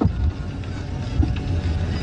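A low, steady engine-like rumble with a faint hiss above it.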